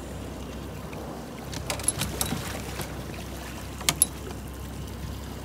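Small fishing boat at sea: a steady low rumble of the boat's motor, with a few sharp clicks and knocks, two of them close together about four seconds in.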